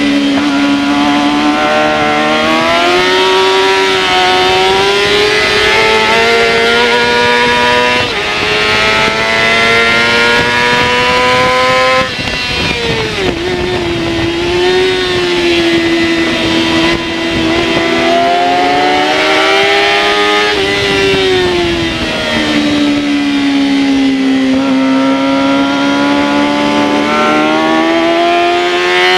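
Yamaha R6's inline-four engine at racing speed, heard from on board. Its pitch climbs steadily for about twelve seconds, drops sharply, then falls away and climbs again twice more, over a steady rush of wind noise.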